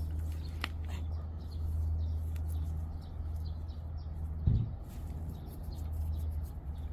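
Faint bird chirps over a steady low hum, with one dull thump about four and a half seconds in.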